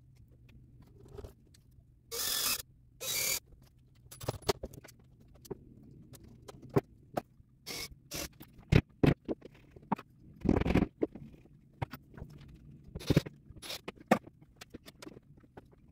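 Scattered handling noises from tools and materials: two short scrapes about two and three seconds in, then irregular clicks, taps and brief scrapes, with a longer scrape a little past the middle.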